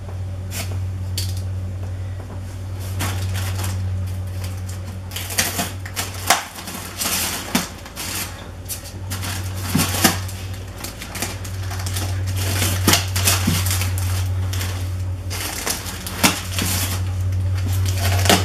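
Packaging being handled during an unboxing: irregular clicks, taps and scrapes of cardboard and stiff foam packing, over a steady low hum.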